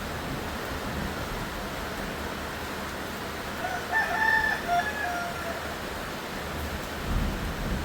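A rooster crows once, about four seconds in, over a steady hiss of rain. A low bump follows near the end.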